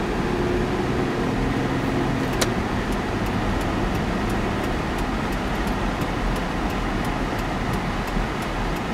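Steady inside-the-car noise while driving: engine and road rumble mixed with the heater fan blowing on full blast. One light click about two and a half seconds in.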